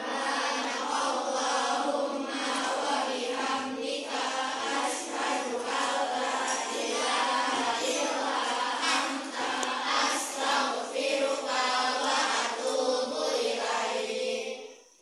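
A group of voices singing together in a chant-like choral line. It starts suddenly and breaks off just before the end.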